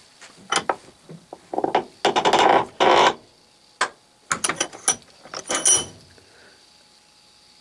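A small sealed ball bearing being forced into its steel housing by hand pressure on a shaft bearing against the inner race: irregular metal clicks and grating scrapes. A quick cluster of sharp metallic clicks follows about four to six seconds in, some ringing briefly.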